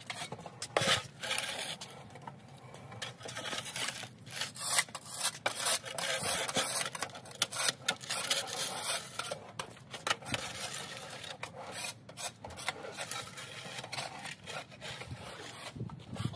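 A shovel blade scraping and rasping along a snowy concrete walkway in repeated, irregular strokes as snow is pushed and scooped off.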